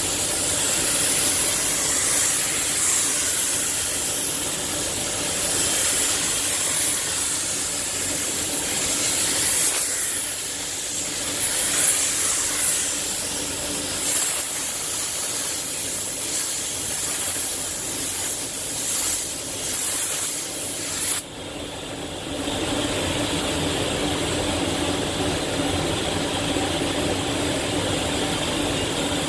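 Air spray gun hissing as paint is sprayed, the hiss swelling and dipping with each pass, then cutting off suddenly about two-thirds of the way through. A steady background drone continues after it.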